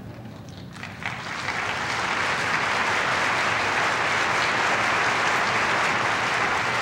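Crowd applauding: a few scattered claps about a second in, swelling into steady, sustained applause.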